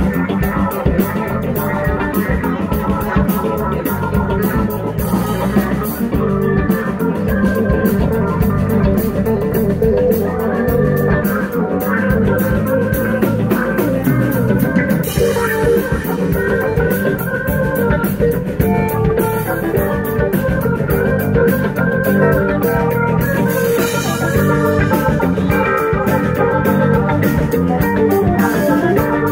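Live rock band playing an instrumental stretch of a song, no singing: electric guitars, an organ-sounding keyboard, bass and drum kit, at a steady loud level.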